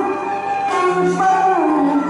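Cantonese opera song music: a melody line that slides and wavers in pitch over the accompaniment.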